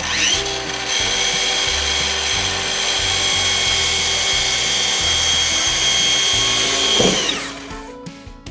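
Hitachi slide miter saw's motor spins up with a rising whine and runs steadily while the blade is brought down through a wooden board. It winds down with a falling whine about seven seconds in.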